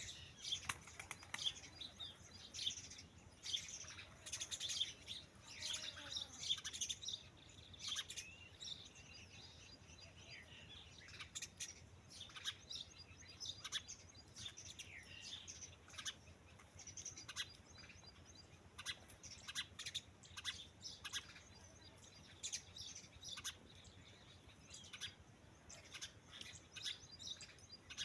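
Birds chirping and calling: many short, high chirps, some of them gliding notes, coming thick in the first half and more scattered later.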